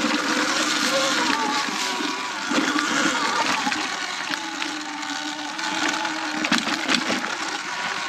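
Sur Ron X electric dirt bike on the move: the motor's whine drifting in pitch with speed over a steady rush of noise, with a few sharp knocks from the bike.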